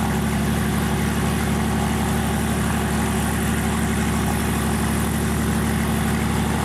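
Small Robinson helicopter running steadily on the ground, engine and main and tail rotors turning at an unchanging pace.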